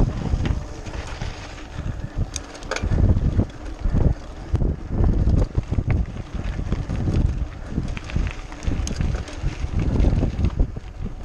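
Wind buffeting the microphone of a mountain biker's camera, over the rattle and knocks of the bike riding across cobblestones and then a dirt track, with a few sharp clicks.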